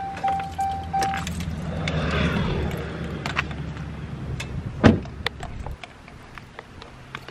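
A pickup truck's warning chime dinging about three times a second, stopping about a second in, with the driver's door open. A low steady rumble follows, with one heavy thump near five seconds.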